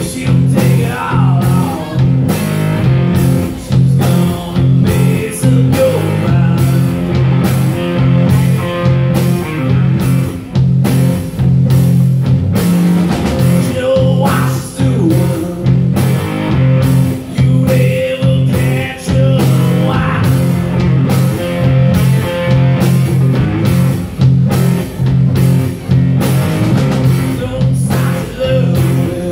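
Live rock band playing: a male singer over electric guitars, bass and a drum kit keeping a steady beat.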